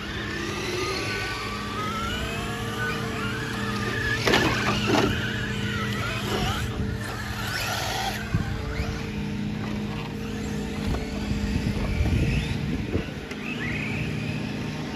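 Electric radio-controlled off-road cars racing on dirt: several motors whining, rising and falling in pitch as the cars accelerate and slow, over a steady low hum. A sharp scrape or knock about four seconds in and another a second later.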